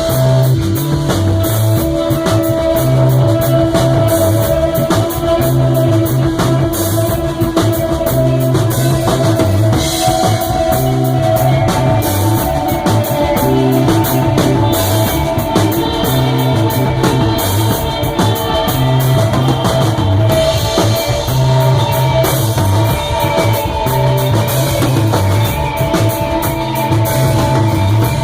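A rock band playing live: a drum kit keeps a steady beat under sustained electric guitar notes and bass, with no vocals.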